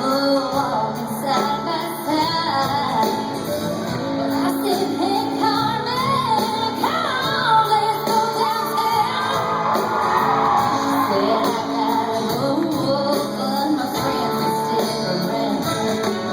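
Live rock band playing with a lead singer's wavering, held vocal line over it; a full-band concert performance.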